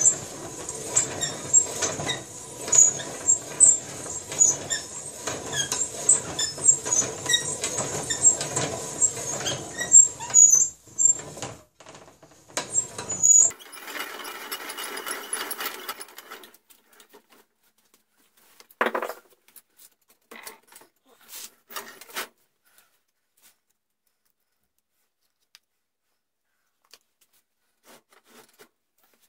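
A barrel reamer turning and cutting inside a rifle barrel, squealing and chattering metal on metal; the squeal stops about 13 seconds in. A short scraping follows, then only a few faint clicks.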